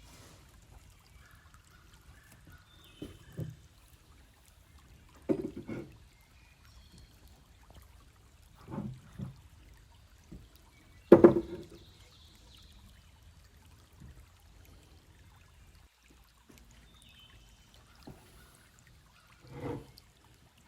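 A series of irregular knocks and clunks, the loudest about eleven seconds in, over a faint low hum.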